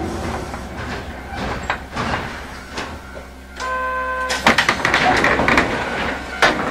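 Hankai Tramway Mo161-type tram with nose-suspended motors, its running noise fading as it slows to a halt. About three and a half seconds in a short steady buzzer sounds, followed by clattering clicks and a rush of noise as the doors open.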